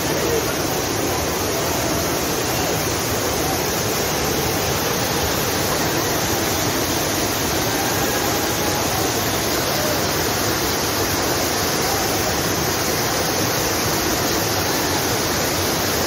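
Steady rushing of a large waterfall in heavy flood flow, white water pouring over wide rocky cascades. The sound is a continuous, even wash of water noise with no breaks.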